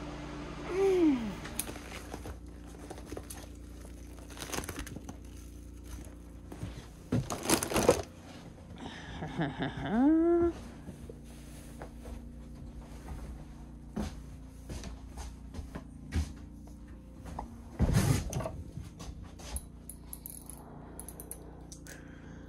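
Scattered clicks, knocks and clatter of things being handled, with two short wordless vocal sounds: a falling one about a second in and a rising-then-falling one about ten seconds in.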